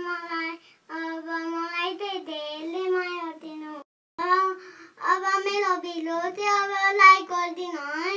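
A young child singing with no accompaniment, holding notes in short phrases broken by brief pauses.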